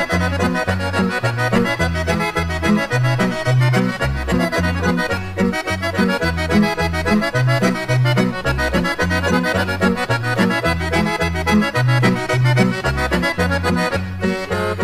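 Instrumental introduction of a 1972 Yugoslav folk song: an accordion plays a fast melody over a bass line that steps back and forth between low notes in a steady rhythm.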